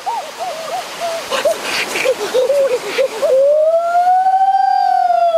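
Boys' voices making high wordless exclamations of delight, short rising-and-falling "ooh" sounds that end in one long drawn-out "oooh" that rises and then falls, over a stream's steady rush.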